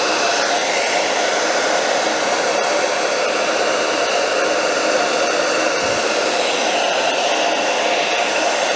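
Handheld hair dryer blowing steadily, with an even rushing hiss and a faint steady whine, heating a plastic sole protector so it can be molded to a sneaker sole.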